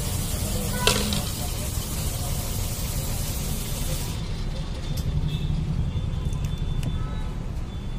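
Steady low rumble of road traffic with indistinct voices in the background, a single sharp click about a second in, and a high hiss that stops about four seconds in.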